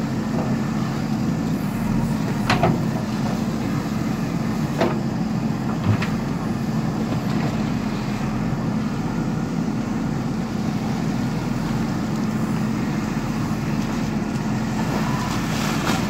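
JCB 3DX backhoe loader's diesel engine running steadily under hydraulic load while the backhoe arm digs, with a few sharp metallic clanks from the arm and bucket at about two and a half, five and six seconds in. Near the end, water splashes and pours as the bucket lifts a load of mud out of the water.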